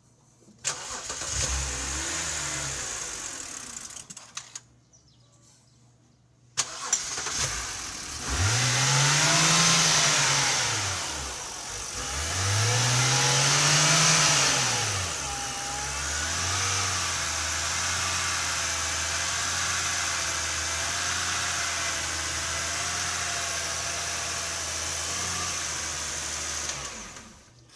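BMW engine starts and runs a few seconds, then stops. It is started again, revved up and back down twice, and left idling with a slightly wavering note. The owner describes it as a rough idle that persists after a new valve cover gasket, spark plugs and coils, with no check-engine light or fault codes.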